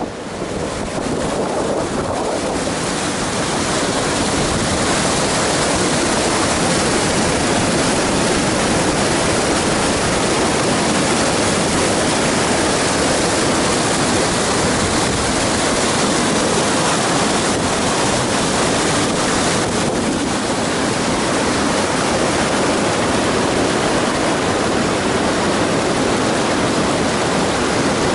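River water rushing over rock ledges and small cascades, a steady, even rush that builds slightly over the first couple of seconds and then holds level.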